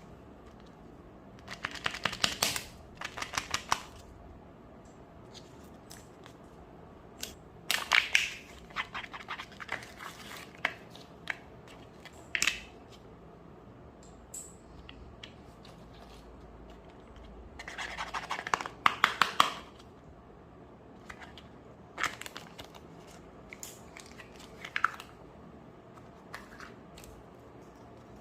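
Kinder Joy eggs being unwrapped and opened: crinkling and tearing of the foil wrappers with quick clicks of the plastic shells, in several separate bouts with quieter handling in between.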